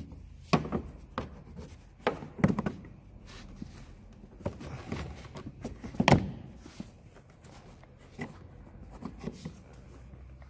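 Plastic trim clips being worked loose with a screwdriver and a clip removal tool: irregular clicks, taps and scrapes of tool on plastic, the loudest knock about six seconds in.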